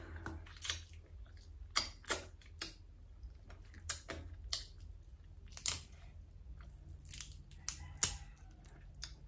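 Fried crab shell cracking and snapping as it is pulled apart by hand, in irregular sharp cracks, the loudest about eight seconds in, with some chewing between them. A low steady hum runs underneath.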